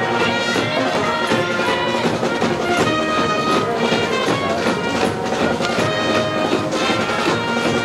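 School brass band playing a cheering tune: trumpets, trombones and saxophones holding bright sustained notes over a steady beat.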